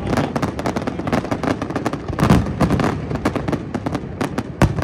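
Fireworks display: a rapid, unbroken barrage of bangs and crackles, with a single sharp report standing out near the end.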